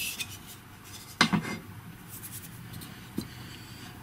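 Handling noise from the plastic arm housing and small parts of a GHD hair straightener being taken apart: a brief rustling scrape at the start, a sharp plastic knock about a second in, and a small click near the end.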